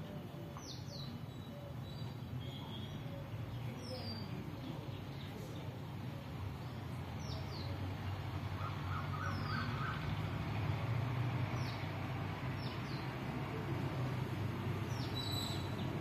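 Sparrows chirping: short, high, downward-sliding chirps scattered every second or two, over a steady low rumble of distant traffic.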